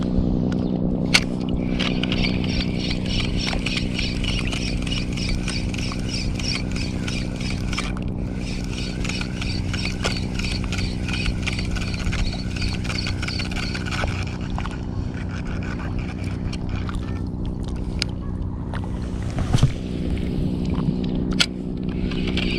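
Daiwa Crossfire LT 1000 spinning reel being cranked to retrieve a lure, giving a rapid, even ticking that pauses a few times, over a steady low hum.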